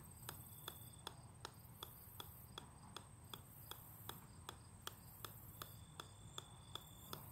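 A golf ball bouncing on the steel head of an 8-pound sledgehammer, giving faint, evenly spaced sharp taps of about three a second.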